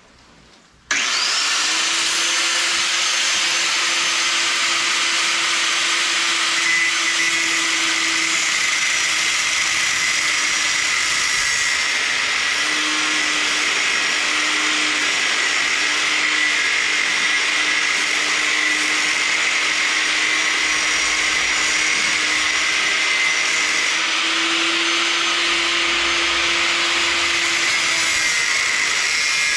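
Angle grinder switched on about a second in, spinning up, then grinding metal steadily with a constant motor whine and a loud hiss.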